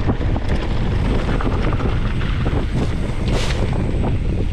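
Mountain bike rolling fast down a dirt trail, with wind buffeting the GoPro's microphone in a heavy rumble. Short clatters and crunches from the tyres and bike run through it.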